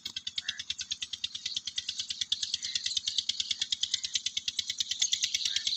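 Peter diesel tube-well engine running steadily: an even, rapid thudding of about ten beats a second, growing a little louder.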